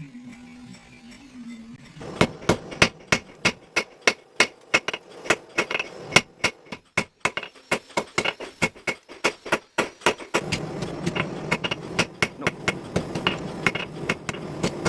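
Hammer striking hot steel on an anvil while forging a knife blade: rapid, even blows about three to four a second, each with a bright metallic ring, starting about two seconds in. About two-thirds of the way through, a steady low rumble joins under the blows.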